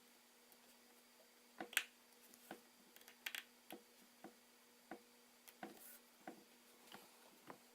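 Scattered light clicks and taps of small tools and parts handled while an iPhone 4S is put back together, the two loudest about two and three and a half seconds in. A faint steady hum runs underneath.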